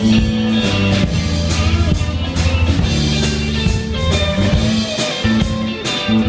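Live rock band playing an instrumental passage between vocal lines: guitar over a drum kit, with held low notes and repeated cymbal and drum hits.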